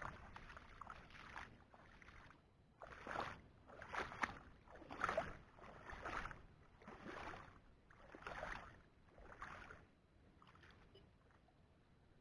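Water splashing and sloshing in a steady rhythm, about one splash a second, dying away near the end.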